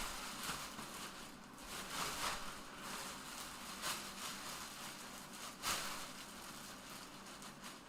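Soft rustling and handling noises that swell and fade every second or two, with one sharp knock about five and a half seconds in.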